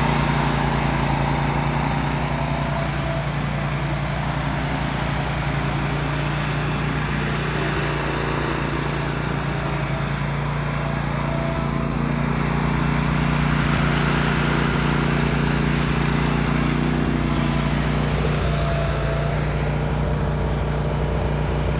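Cox Lawn Boss zero-turn ride-on mower running steadily while mowing, a constant engine hum with blade and airflow hiss. Near the end the hiss fades and the hum changes.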